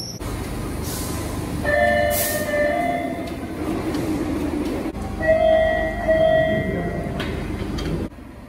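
MBTA Red Line subway cars standing at a platform with a steady low rumble of their equipment. Two-note chimes sound twice, about 2 s and 5 s in, typical of door-closing warnings. A short sharp hiss of air comes about 2 s in.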